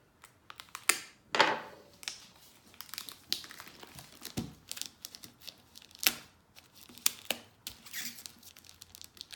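Plastic shrink-wrap crinkling and tearing as it is pulled open around a new Bible, in irregular crackles and snaps with a louder rustle about a second and a half in.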